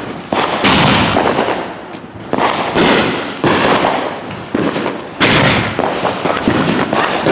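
Phantom Fireworks Heavy Heavy Fuel 500-gram cake firing its shells in succession: sharp loud bangs about once a second, each trailing off before the next.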